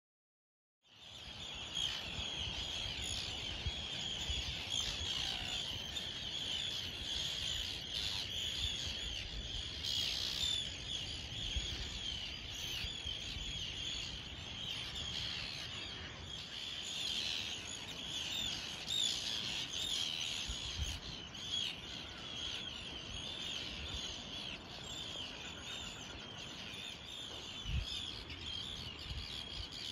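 Birds chirping and twittering in a dense, continuous chorus, starting about a second in, with low gusts of wind buffeting the microphone.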